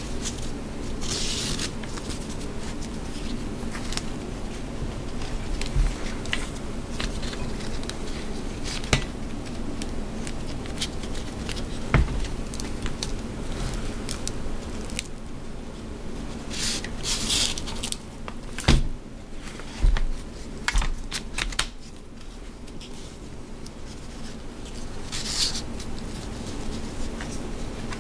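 A Blue Force Gear Vickers sling being adjusted by hand: nylon webbing rasps and rustles as it slides through the plastic adjuster buckle. Scattered clicks and knocks run through it, with the loudest knocks a little after the middle.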